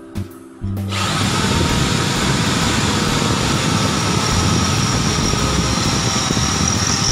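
Background music, then about a second in a Mailtank 13 mm electric impact drill starts and runs steadily, its 8 mm bit grinding into 5 mm steel U-channel.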